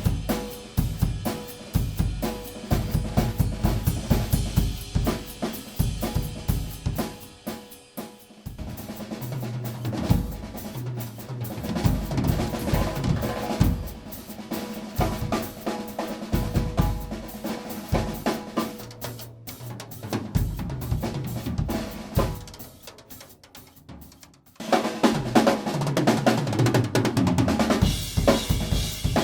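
Acoustic drum kit played solo: fast bass drum, snare and cymbal strokes, then rolling fills across the toms. The playing drops quieter about three-quarters of the way through, then comes back loud on the full kit near the end.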